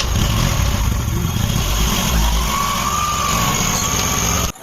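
Tractor engine running steadily just after starting. The sound cuts off suddenly near the end.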